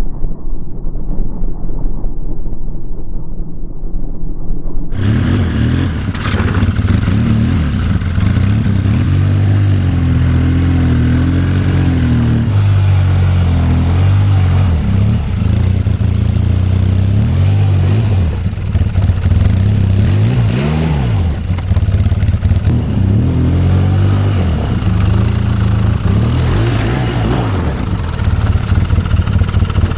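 Polaris Sportsman ATV engine revving up and down as it crawls over rocks, its pitch rising and falling repeatedly. The first few seconds are muffled and dull, then the sound opens up suddenly about five seconds in.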